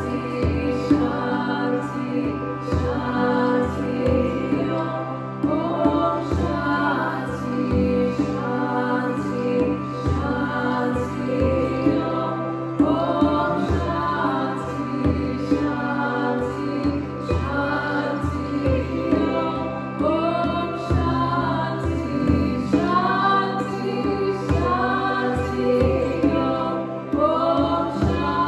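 A woman chanting in long, bending sung phrases over a steady harmonium drone, with a frame drum beating underneath.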